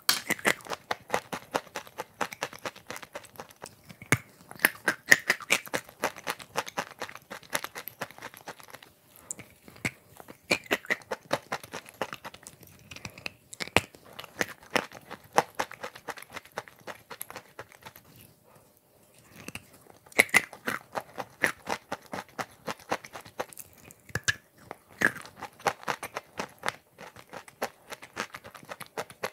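Crunching and chewing of big bites of chalk coated in clay paste with chocolate pieces, a dense run of sharp crackles and crunches close to the microphone, with a brief pause about two-thirds of the way through.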